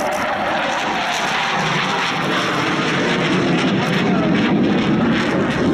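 Jet noise from a Panavia Tornado's twin RB199 turbofan engines as the jet flies overhead: a steady, dense rushing sound that grows deeper and slightly louder from about halfway through.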